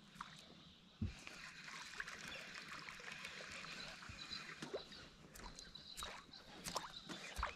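Faint water lapping and trickling against a small boat's hull, with scattered light clicks and a dull knock about a second in.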